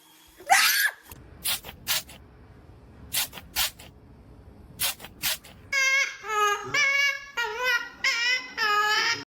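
A parrot's vocalizing: a few short, sharp squawk-like noises, then from about halfway through a string of wavering, high-pitched wailing cries much like a crying baby.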